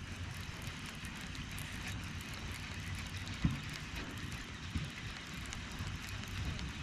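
Steady low outdoor rumble with a hiss above it, and one short knock about halfway through.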